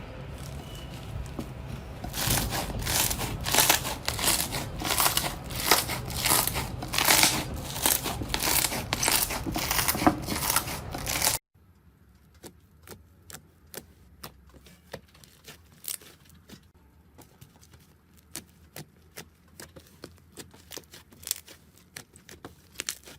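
Slime being squeezed and stretched by hand, giving rapid crackling and popping clicks. About eleven seconds in it cuts to a much quieter stretch of sparse pops.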